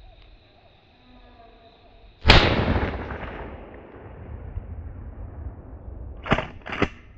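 A single shotgun blast about two seconds in, echoing and dying away over the next couple of seconds. Two shorter sharp sounds follow close together near the end.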